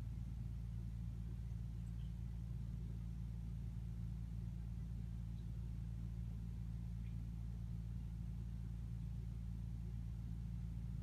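A steady low hum, unchanging in level, made up of a few deep tones.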